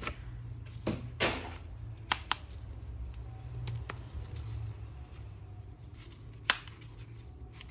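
A few sharp clicks and taps of a plastic action figure or its packaging being handled, over a steady low hum.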